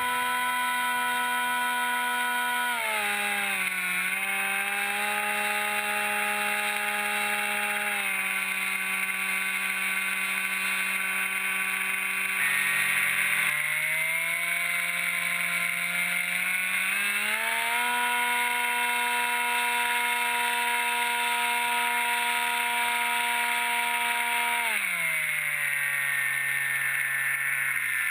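Electric motor and propeller of a foam-board FPV flying wing running steadily in flight, with the pitch following the throttle: it drops about three seconds in, steps lower near the middle, rises again later and drops once more near the end. A steady hiss of wind rushes under it.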